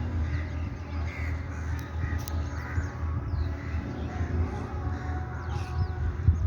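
Bird calls, short chirps and harsh notes, over a steady low hum.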